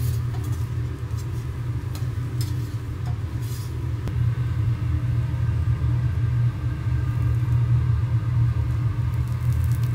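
Steady low rumble with a few light metal clicks of spatulas on a teppanyaki griddle in the first few seconds.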